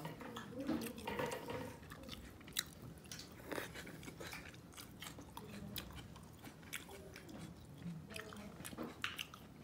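Chewing and mouth sounds of a person eating cooked fish, with small clicks here and there.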